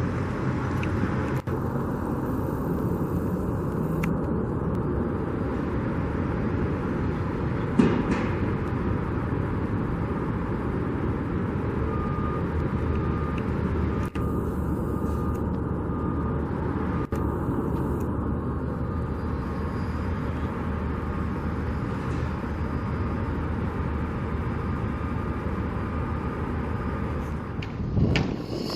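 Steady noise of street traffic going by, with one sharp knock about eight seconds in.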